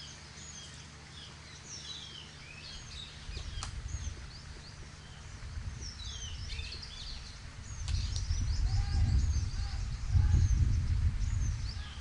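Small birds chirping and twittering throughout, over a low rumbling noise that gets louder about eight seconds in.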